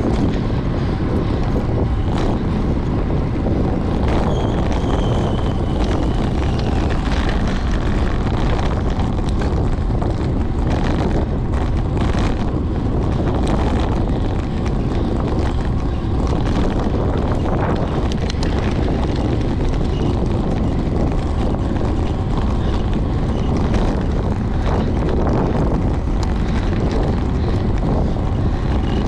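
Wind buffeting the microphone of a camera on a racing bicycle moving at speed, a steady loud rush with tyre and road noise, and a scattering of short clicks and knocks.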